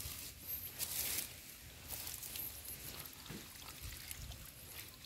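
Shallow pond water splashing and trickling as hands search through mud and water-weed, with a short burst of splashing about a second in.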